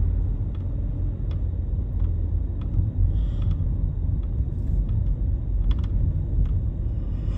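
Steady low rumble of a car's engine and tyres heard from inside the moving car's cabin, with a few faint clicks.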